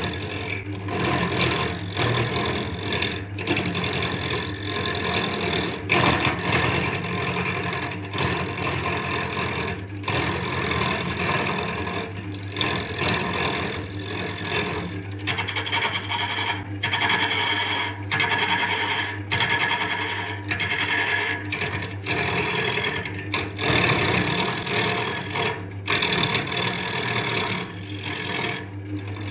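Wood lathe running with a steady motor hum while a turning tool scrapes the spinning wood, the cutting noise dropping out briefly many times as the tool lifts off.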